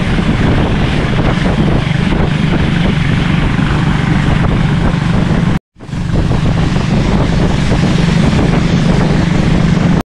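Engine of a motorised wooden longboat running steadily under way, with water rushing along the hull and wind on the microphone. The sound cuts out abruptly a little past halfway and fades back in.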